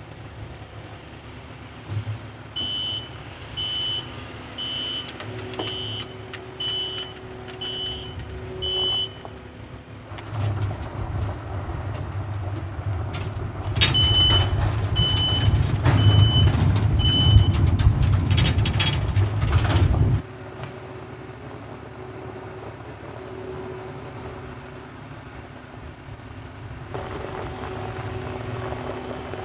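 A loading machine's engine running, with its back-up alarm beeping about once a second, seven beeps in a row. About ten seconds in, the engine revs up hard under load and four more beeps sound. It then drops back suddenly to a lower steady run.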